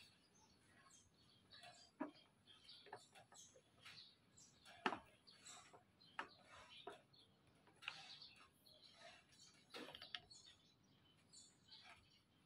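Near silence broken by faint, scattered clicks and taps of a screwdriver and a plastic number-plate holder being handled and screwed on, the sharpest click about five seconds in.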